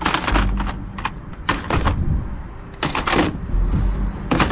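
Hard plastic toy guns clattering and knocking against each other and the plastic tub as a hand rummages through the pile and lifts one out, in four short bursts of rattling.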